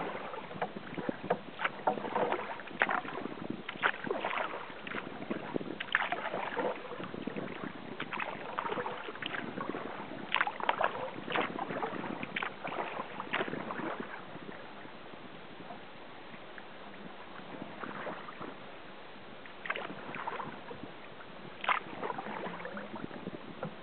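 Sea kayak paddling on calm water: irregular splashes and drips as the paddle blades dip in and lift out. The strokes stop for several seconds past the middle while the kayak glides, then resume.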